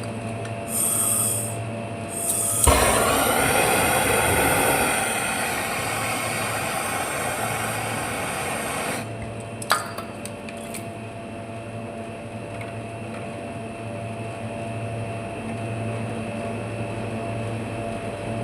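A loud hiss of gas for about six seconds, starting abruptly and cutting off sharply, over the steady hum of a running machine; a short hiss comes about a second in and a single sharp click follows the long hiss.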